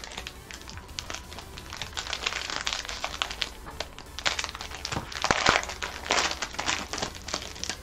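Cellophane wrappers of Mosaic football cello packs crinkling and tearing as they are pulled open by hand: a dense crackle that comes in two spells, the louder from about four seconds in.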